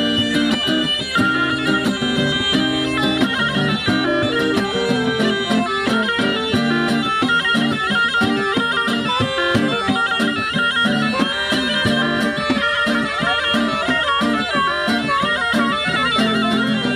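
Tulum (Turkish Black Sea bagpipe) playing a quick, ornamented folk melody, with an acoustic guitar strummed in a steady rhythm underneath.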